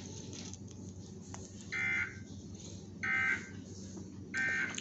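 Emergency Alert System end-of-message data tones: three short, identical bursts of screeching digital (SAME) warble, about one and a quarter seconds apart, signalling the end of the alert.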